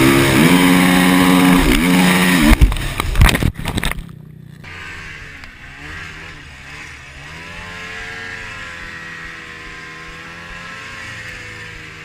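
ATV engine revving loudly with a wavering pitch, with a few sharp knocks around the third second; then a snowmobile engine takes over, quieter and steadier, its pitch rising and falling gently.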